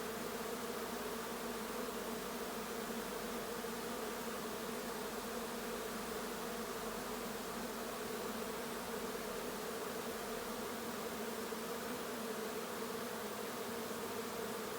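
Honey bee swarm humming steadily as the bees crowd at a hive entrance to move in.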